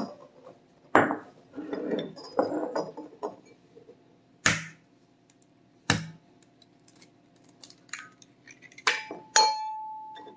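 Eggs being cracked on glass bowls: three sharp knocks spread through the first six seconds, then glass clinking with a short ringing tone near the end as the egg is tipped from a small glass bowl into a glass mixing bowl.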